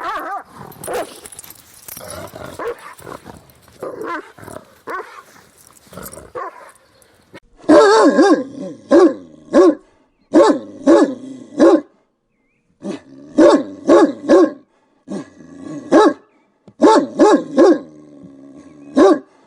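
Angry dogs barking and growling. After about seven seconds, loud barks come in quick runs of three or four, about three barks a second, with short silent gaps between the runs.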